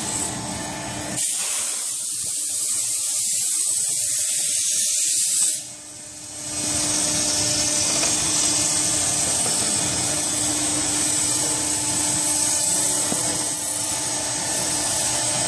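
A steady hiss for the first few seconds. After a brief dip about six seconds in, a CNC router's spindle runs steadily with a held tone as its end mill cuts a groove in pink foam board.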